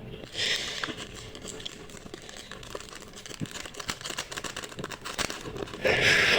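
Close-miked eating of instant noodles: small wet chewing clicks throughout, with two short hissing bursts, a quieter one about half a second in and a louder one near the end.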